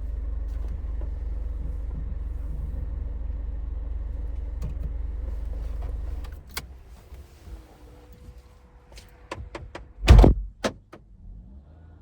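Citroen C5 Aircross heard from inside the cabin: a steady low engine and road rumble that stops about six seconds in. Then a few light clicks and one loud thump near the end.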